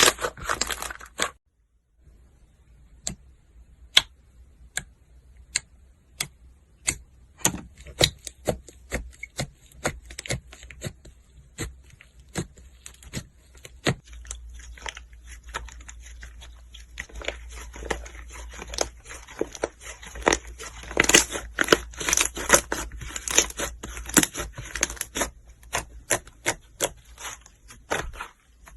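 Slime being squeezed and pressed by hand, making irregular sharp clicks and crackles. The sounds are sparse at first and come thick and fast from about halfway on.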